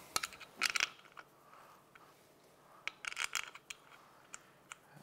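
Light metallic clinks and scrapes in two short flurries, one at the start and one about three seconds in, as steel mounting bolts are handled and started by hand into a starter motor on an aluminium engine case.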